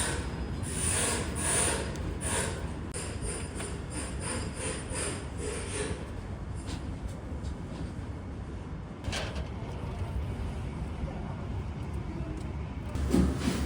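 Restaurant kitchen noise: a steady low hum with a run of light clatters of utensils and crockery in the first half, and one sharper clink about nine seconds in.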